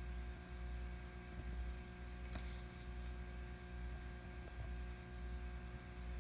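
Steady low hum with a few faint steady tones above it, and a short burst of soft hiss about two and a half seconds in.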